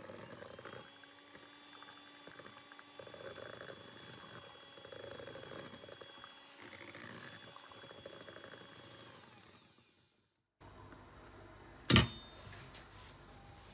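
Electric hand mixer running, its beaters churning cake batter in a metal bowl with a steady motor whine; it stops a little before ten seconds in. Near the end comes a single sharp knock, the loudest sound here.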